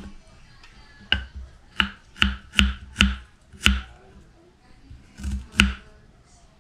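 Kitchen knife chopping on a thick wooden chopping board: about eight sharp knocks at an uneven pace, mostly in a quick run then two more near the end.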